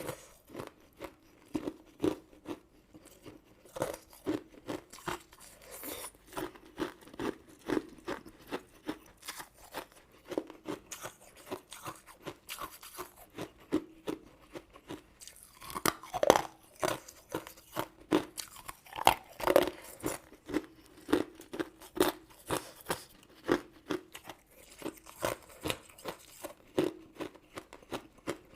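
Close-miked chewing and crunching of sweets: a steady run of short, crisp crunches several times a second, with a few louder bites past the middle.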